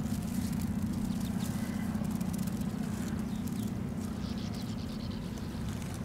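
A steady low drone with a faint hiss over it.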